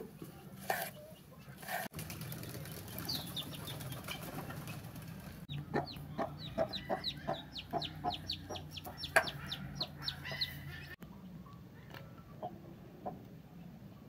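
Kitchen knife slicing tomatoes on a wooden cutting board: a run of quick, even strokes, about three a second, with birds chirping in the background.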